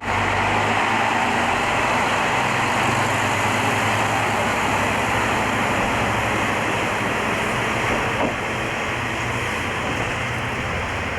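A train running: a steady rumble and hiss of machinery and motion that eases slightly near the end.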